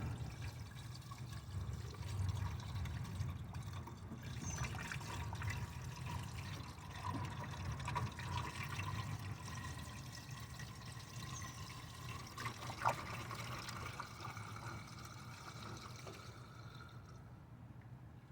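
Coolant trickling and pouring softly over a faint steady low hum, during a radiator coolant change.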